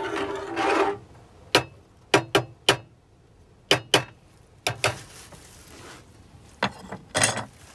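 A metal spoon clinking several times against the rim of a stainless saucepan of simmering keto syrup: a series of short, sharp clicks in pairs and threes.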